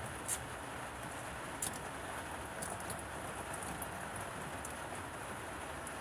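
Steady rain falling, with scattered sharp taps of drops striking close by, the two loudest about a third of a second and a second and a half in.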